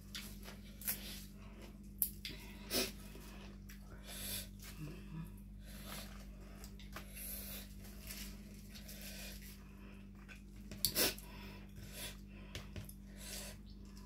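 Crisp fresh napa cabbage leaves and herbs rustling and snapping as they are picked and folded into a wrap by hand: a run of small crackles and clicks, with sharper snaps about two seconds in, just before three seconds, and again near eleven seconds.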